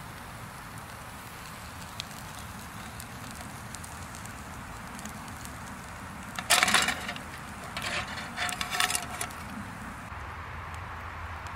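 Wire grill basket clattering onto a thin aluminium tray about six and a half seconds in, with a short ringing tone, then rattling against it a few more times. Under it is the faint steady hiss and occasional crackle of a charcoal fire.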